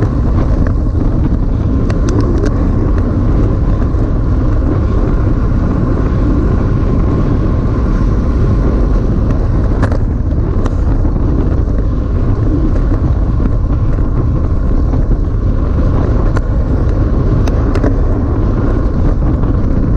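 Wind rushing over the microphone of a camera on a road bike riding at race speed, with tyre noise from the road: a steady low rush, with a few faint clicks.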